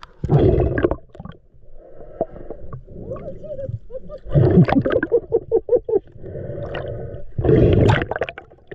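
Underwater: a diver's exhaled air bubbling and gurgling in three loud bursts a few seconds apart, with softer bubbling between and a quick train of bubble pops after the middle burst.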